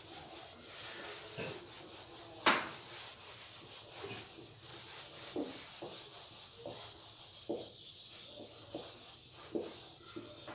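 Whiteboard eraser rubbing back and forth across a whiteboard as it is wiped clean, a steady scraping hiss, with one sharp knock about two and a half seconds in and a few lighter taps later.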